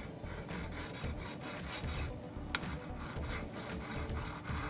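Diamond file scraping in short back-and-forth strokes across a flat-mount brake caliper mounting boss on a carbon fork, with a brief pause about two seconds in. It is taking the excess paint off the boss to leave a flat mounting surface.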